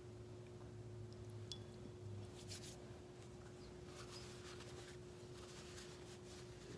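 Faint rustling of a small linen towel as hands are wiped dry, a few soft rubs over a steady low electrical hum.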